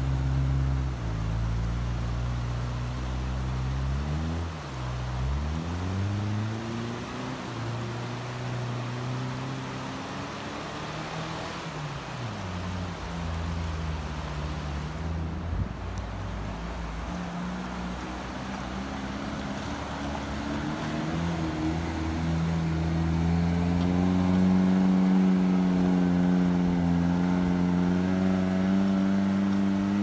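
Daihatsu Feroza's engine revving hard as the 4x4 struggles through deep snow, its pitch climbing and dropping as the wheels spin. Near the end it is held at high revs, louder and steady.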